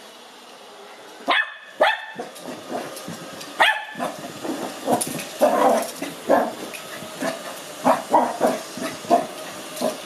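Lhasa Apso puppy barking over and over, more than a dozen sharp yaps starting about a second in, excited and wary at a robot vacuum. Under the barks runs the steady hum of the Ecovacs Deebot robot vacuum, heard alone for the first second.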